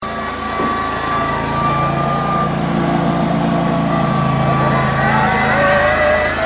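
An engine running steadily with a low hum that drops away about five seconds in, with a high wavering whine over it.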